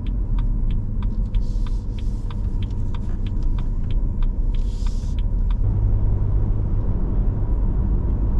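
A car's turn-signal indicator ticking steadily, about two to three clicks a second, over engine and road rumble inside the cabin. The ticking stops about five seconds in, and the engine rumble then grows louder.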